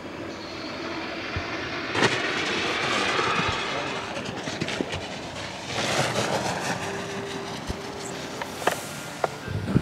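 Ski jumper's skis landing and sliding over plastic summer matting: a continuous rushing hiss that swells about two seconds in and again past the middle as the skier runs out toward the microphone, with a couple of sharp clicks near the end.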